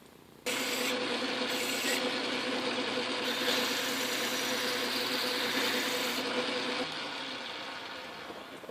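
Montgomery Wards Logan metal lathe switched on and running steadily with a hum and a higher whine, used to deburr a freshly cut edge. It is switched off about seven seconds in and fades as it spins down.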